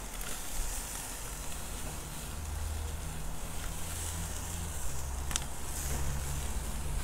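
Low droning hum with wind on the microphone, over the faint sizzle of chicken cooking on a charcoal grill. The metal tongs click once about five seconds in as the chicken pieces are moved.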